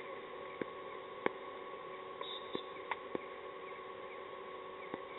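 Outdoor field ambience: a steady hum, with a few sharp clicks scattered through it and one short high chirp a little before the middle.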